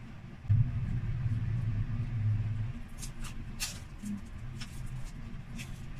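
Crisp, crackly bites and chewing of chicharon bulaklak, deep-fried pork intestine, in the second half. Before that, a low hum starts about half a second in and lasts about two seconds.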